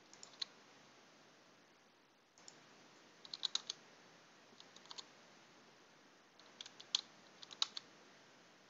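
Computer keyboard and mouse clicking: short scattered clusters of sharp clicks over a faint steady hiss, the loudest about three and a half seconds in and around seven seconds in.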